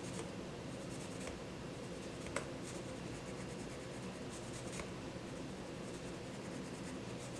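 Arteza colored pencil scratching softly on paper in steady shading strokes, with a light click about a third of the way in.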